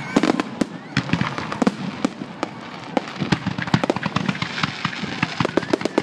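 Fireworks going off in rapid, irregular succession: many sharp bangs and crackling pops overlapping, denser in the second half.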